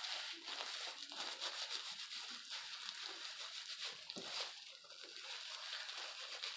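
Plastic-gloved hands rubbing hair bleach through wet hair on the scalp: a steady wet squishing and rubbing, with the crackle of the thin plastic gloves.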